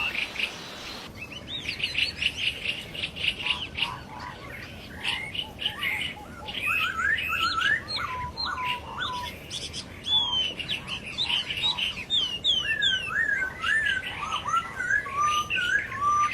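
Poksay hongkong laughingthrushes (masked laughingthrush) singing and calling: a busy stream of chirps and short whistled notes that slide up and down, several overlapping.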